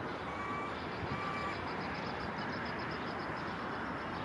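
Two short beeps of a vehicle's reversing alarm within the first second and a half, over a steady background rumble, with a faint rapid high ticking throughout.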